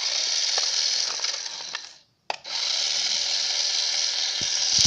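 Toy RC car's small electric motor running flat out while the car is stuck, with its throttle jammed on. It cuts out briefly about two seconds in, then starts again.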